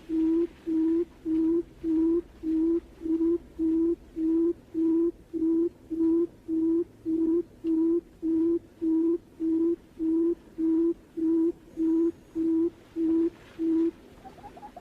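Barred buttonquail's booming call: a long, even series of low hoots, about two a second, each held at one pitch. Near the end the hoots stop and a faster run of short, higher rising chirps begins.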